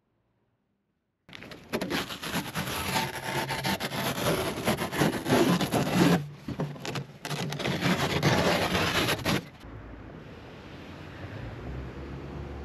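Peel ply being ripped off cured carbon fiber fillets, a loud, continuous tearing and rubbing sound that starts about a second in, breaks off briefly twice and stops abruptly near the end, leaving a faint steady hiss.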